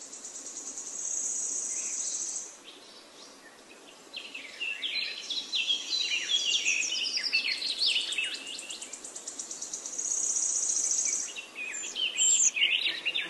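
Small birds singing: a high, rapid trill about a second in and again near ten seconds, with a run of quick, varied chirps in between.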